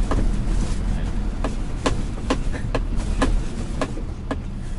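Steady low road and engine rumble inside a moving car's cabin, with a string of short sharp ticks about two a second.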